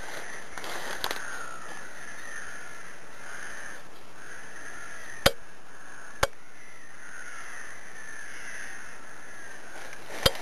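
Crows cawing steadily in the trees, their calls overlapping without a break. Three sharp clicks stand out in the second half.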